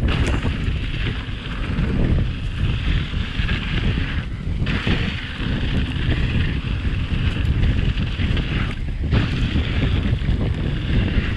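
Wind buffeting the microphone of a camera on a mountain bike riding fast down a dirt singletrack, over a steady rumble of the Pipedream Moxie hardtail's tyres and frame on the trail. The hiss drops away briefly twice, about four and nine seconds in.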